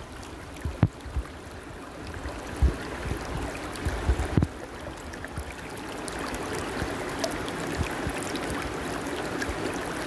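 Shallow stream running over stones, a steady rush of water that grows a little louder about halfway through. A few short low thumps sound in the first half.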